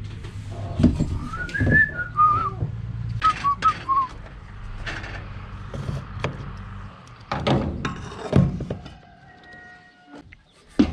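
A person whistling a few short, wavering notes, among scattered clicks and knocks over a low steady hum. Two heavier thumps follow later.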